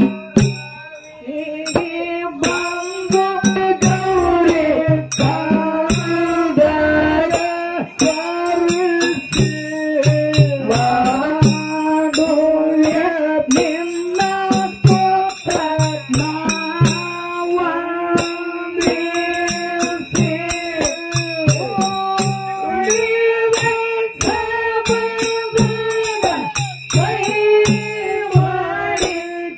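Kannada Dollina Pada folk song: a woman sings the melody into a microphone over a steady hand-drum beat, with small metal cymbals or jingles striking in time.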